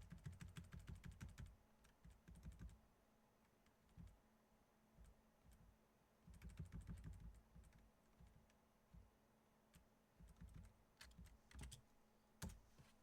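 Faint typing on a computer keyboard in four short bursts of quick keystrokes, with pauses between.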